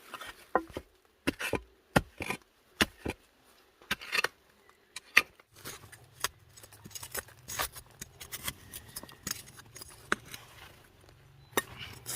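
Potatoes being dug out of soil by hand and tool: irregular sharp knocks, clicks and scrapes of the digging and of potatoes being handled. A faint steady low hum joins about halfway through.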